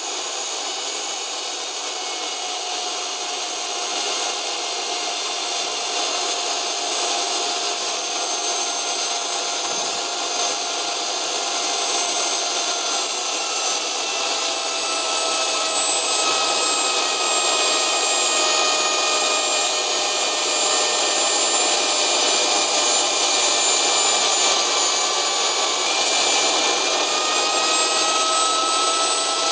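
Small homemade jet engine running steadily on its test stand: a loud, even rushing noise with a high turbine whine that drifts slowly lower in pitch.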